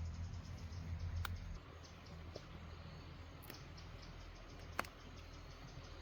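A few scattered sharp clicks over a quiet background, the loudest about five seconds in, with a low hum that stops about a second and a half in.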